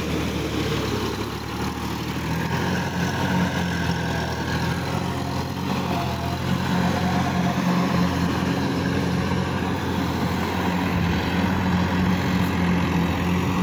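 Sonalika DI-50 RX Supreme tractor's diesel engine running steadily under load, growing slightly louder a couple of seconds in.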